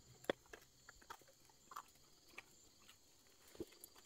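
Near silence broken by a scattering of faint, short clicks and ticks at irregular intervals, the clearest about a third of a second in.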